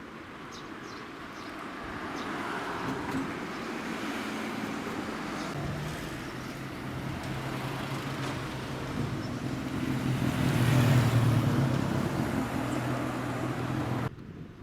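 A motor vehicle's engine and road noise growing louder as it nears, loudest about eleven seconds in, then cutting off abruptly near the end.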